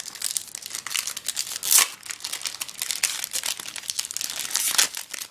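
Foil Yu-Gi-Oh booster pack wrapper crinkling as it is handled and torn open, an irregular crackling with a sharper, louder crackle a little under two seconds in.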